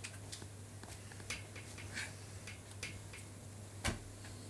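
Faint room tone with a steady low hum and scattered small, irregular clicks, one sharper click near the end.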